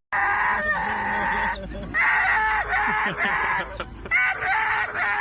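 Domestic fowl squawking loudly and continuously, several calls overlapping, with short breaks about a third and three-quarters of the way through.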